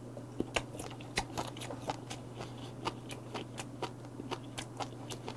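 Close-up chewing of a roe-stuffed squid (komochi yariika). Many small, irregular clicks come as the firm squid flesh is bitten and the herring roe inside crunches and pops, over a faint steady low hum.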